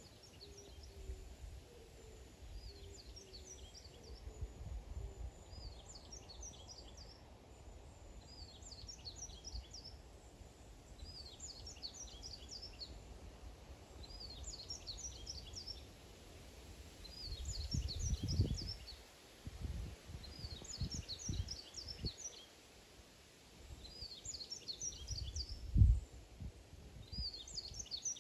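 A songbird repeating the same short, high phrase of several quick notes about every two and a half seconds. Low rumbles come in about two-thirds of the way through, and a louder thump near the end.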